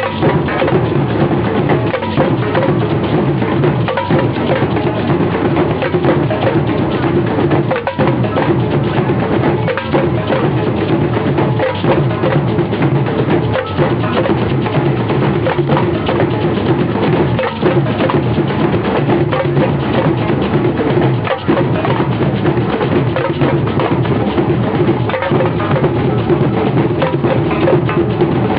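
A marching band playing in procession, its drums prominent with sharp, rapid strokes over a steady, full body of sound.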